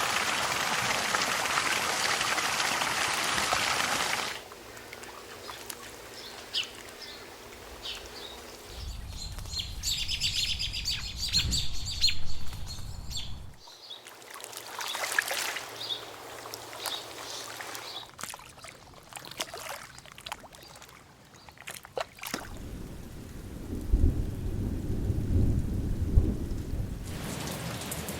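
A run of short nature ambience recordings cut one after another. It opens with steady heavy rain for about four seconds, then quieter outdoor ambiences with birds chirping in the middle, then low rumbles of thunder, and rain again near the end.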